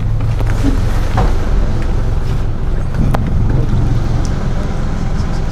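Bayliner 3288 motor yacht's engine running steadily at low speed, a continuous low hum, with a few light knocks about a second in and about three seconds in.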